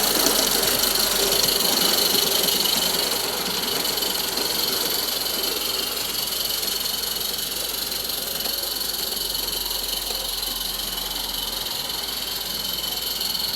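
Small 16mm-scale live steam locomotive running, its steam hissing over a steady mechanical chuffing.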